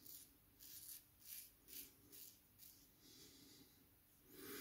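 Open-comb safety razor (Goodfellas' Smile OC with an Astra Platinum blade) scraping through lathered stubble on the chin in about seven short, quick, faint strokes. A brief louder noise follows near the end.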